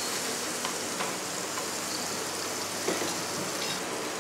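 Butter sizzling steadily in a stainless steel pan on a gas burner, with chopped aromatics frying in it.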